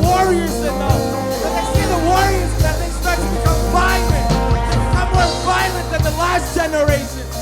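Band music with a steady drum beat and bass under a sung or played melody.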